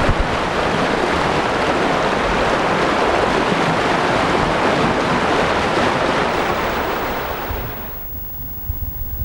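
Muddy stormwater rushing and churning in a flash-flood torrent, a loud steady rush. About eight seconds in it cuts off abruptly, leaving only a quieter low rumble.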